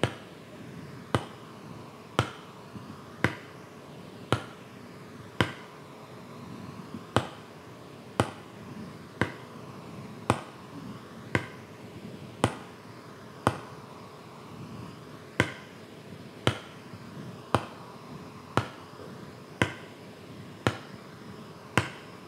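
Marker tip tapping on a whiteboard about once a second, keeping a steady beat as it moves from one solfa syllable to the next.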